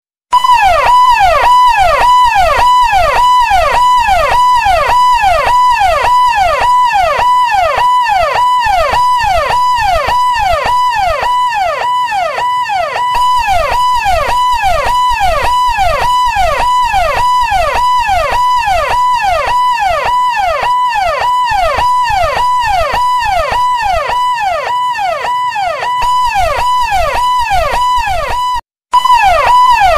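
Ambulance siren in a fast yelp, its pitch sweeping up and down about twice a second over a steady high tone. It cuts out briefly about a second before the end.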